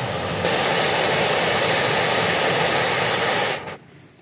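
Butane gas camping stove burner running with a steady rushing hiss of gas flame, growing louder about half a second in, then shut off suddenly shortly before the end.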